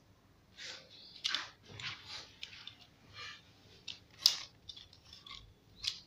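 Packaging and the folded tripod-selfie stick being handled: irregular rustling and crinkling, with one sharp click a little after four seconds in.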